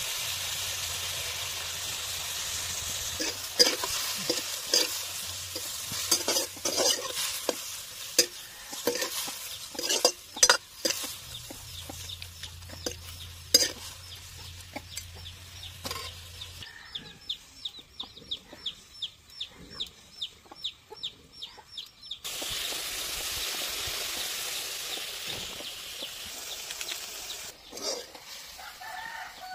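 Snails in their shells frying with turmeric in a steel wok over a wood fire, sizzling, while a long metal spatula stirs them, scraping and knocking against the pan in quick irregular strokes.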